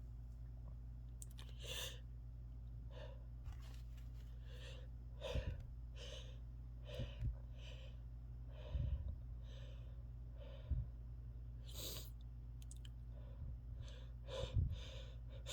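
A person's short, quick breaths and sniffs repeating about once a second: the catching breaths of a sneeze building up. A few soft bumps are mixed in.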